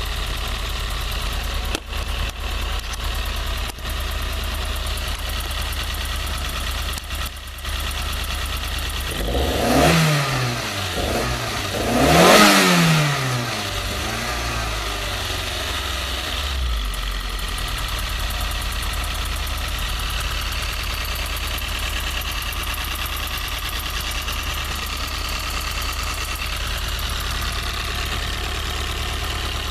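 Toyota 4A-GE 20-valve blacktop inline-four idling cold, revved twice in quick succession about a third of the way in, the second rev higher and louder, then settling back to a steady idle. The owner hears a ticking from the exhaust header at idle that goes away at high revs.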